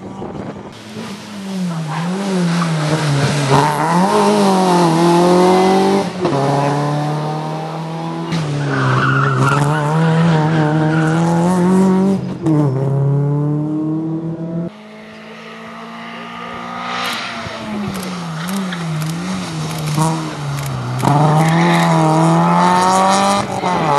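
Rally car engine heard from inside the cabin, revving hard and rising and falling in pitch with repeated gear changes. The note drops sharply about 6, 12 and 15 seconds in. Behind it is a steady rush of tyre and road noise.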